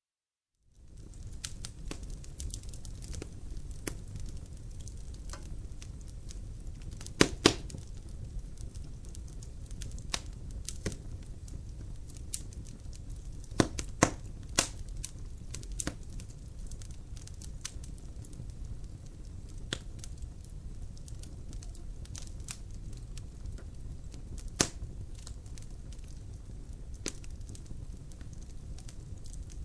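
Wood fire crackling in a fireplace, starting just under a second in: a steady low rumble of flames with frequent sharp pops and snaps, the loudest a quick pair about seven seconds in and others near 14 and 25 seconds.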